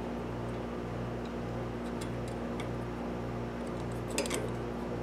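Steady low hum with a slow regular pulse, under a few faint metallic ticks and a small clatter about four seconds in as a steel rule and combination square are handled against a motor shaft.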